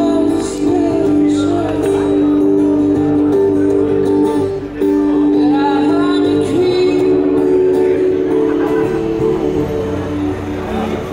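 A street musician singing to an amplified acoustic guitar, with held notes under the voice, and a crowd chatting around him.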